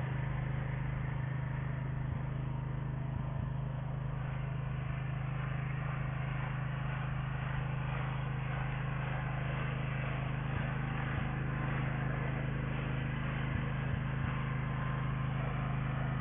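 Solar-panel cleaning robot running along a row of panels, its motor and rotating brush giving a steady low mechanical hum with a hiss over it, with a few faint ticks.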